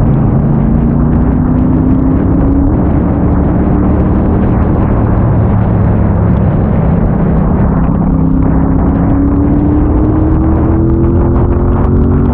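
Triumph Bobber's 1200 cc parallel-twin engine running under way in a loud rush of wind and road noise. Its note climbs gradually as the bike accelerates, once near the start and again over the last few seconds.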